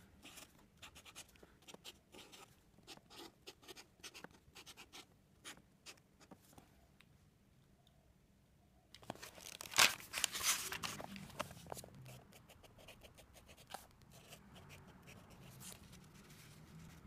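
A Posca paint marker scratching across a cardboard notebook cover in many short strokes as letters are written. After a short pause comes a louder rustle of paper and cover with one sharp knock as the notebook is opened and its pages are flattened, then softer rustling and scraping.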